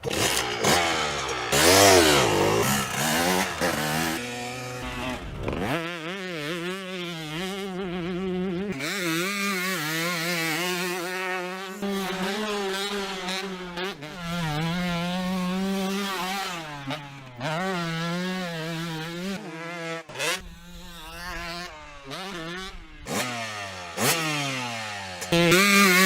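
Two-stroke dirt bike engine revving, its pitch rising and falling over and over as the throttle is worked, with a couple of long climbs in revs.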